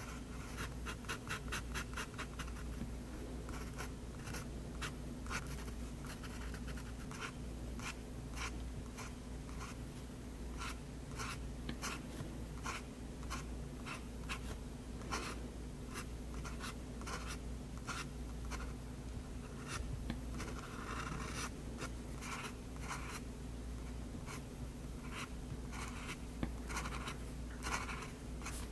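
Extra-fine nib of a Faber-Castell Hexo fountain pen scratching across paper in many short strokes, with a quick run of rapid strokes about a second in and scattered single strokes after.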